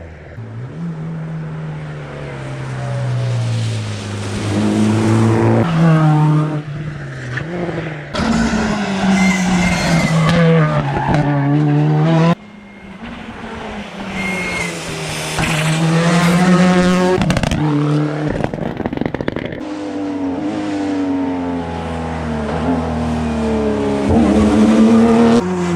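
Rally cars driven flat out on a stage. The engines rev up and drop back again and again through gear changes and lifts, with tyres squealing at times. The sound cuts abruptly to another car about halfway through.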